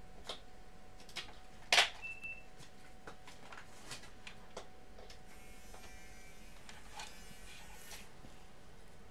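Scattered light clicks and taps of small objects being handled, with one sharper click about two seconds in and a faint rattle later on.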